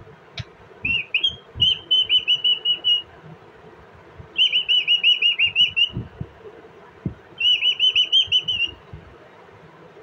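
Indian ringneck parakeet calling in three bursts of rapid, high, warbling whistled notes, each burst one to two seconds long, with short pauses between them.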